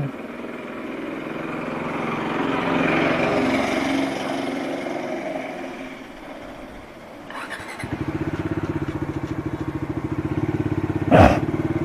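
A motorcycle engine is started about seven seconds in and settles into a steady, rapid idle. Before that, a rising and fading rush of noise, and near the end a brief loud sound that falls in pitch.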